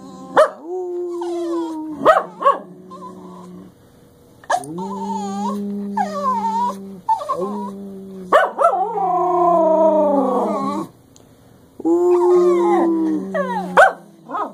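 Two English Cocker Spaniels howling together in long drawn-out notes, one voice held low and steady while another wavers and glides above it, with short sharp yelps between the howls.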